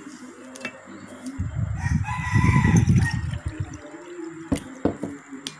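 A rooster crowing once, a drawn-out call of a second or so over a low rumble. Two sharp knocks follow near the end.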